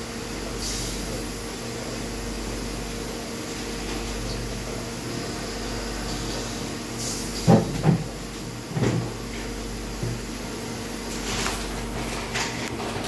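Steelco VS6/2 steam sterilizer running with a steady hum. About halfway through come three knocks, the first two close together and the loudest sounds in the stretch, with short hisses just before them and again near the end.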